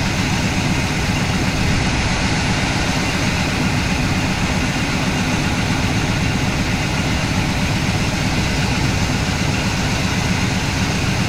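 Wrecker truck's V8 engine idling steadily. Its spark reads low voltage on every cylinder, which the owner takes for a weak ignition coil.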